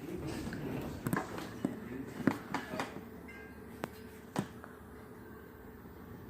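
A handful of short, sharp clicks and knocks, about seven of them in the first four and a half seconds, over a low background murmur.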